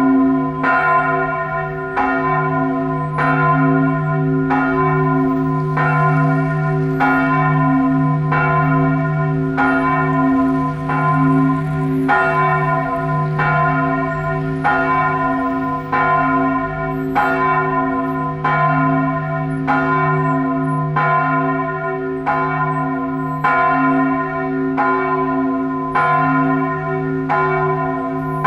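Church bells of the Duomo di San Giorgio tolling a death knell (campane a morto): a bell struck about once a second, each stroke ringing out over a steady low hum that carries on between strikes.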